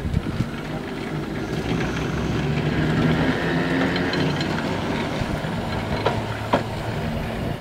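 Small electric works tram running past on its rails: a steady low motor hum over the rumble of steel wheels, with a couple of sharp clicks near the end.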